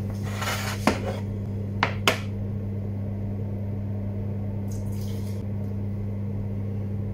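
Cookware being handled on a glass cooktop: a brief scraping noise, then three sharp clanks about one and two seconds in, over a steady low electrical hum.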